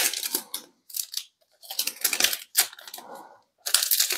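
Crinkling and tearing of a Panini Prizm foil trading-card pack wrapper being opened, with cards handled and sliding against each other, in several short bursts. The loudest burst comes near the end.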